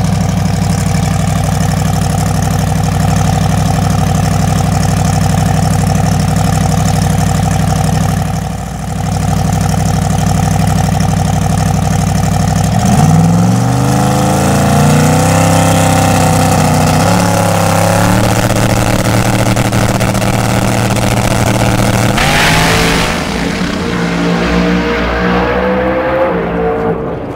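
A turbocharged Chevy Camaro Pro Mod drag car's engine idles loudly and steadily, then revs unevenly from about halfway as the car stages. About 22 seconds in, it launches at full throttle, rising in pitch as it accelerates away down the track and fading at the very end.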